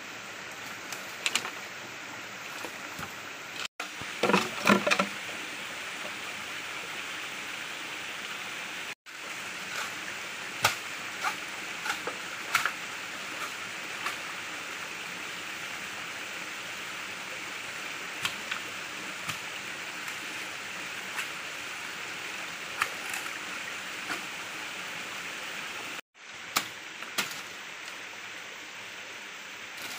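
Steady rush of a flowing stream, with sharp knocks of a machete chopping bamboo: a loud cluster of chops about four seconds in, then scattered single chops.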